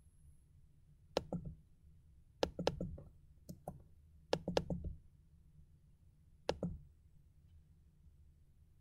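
Sharp clicks with light knocks, in five short clusters of one to four, from someone working the computer, over a faint low hum.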